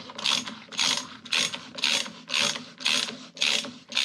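Hand ratchet being worked back and forth to tighten a bolt, about two strokes a second, each stroke a quick run of pawl clicks.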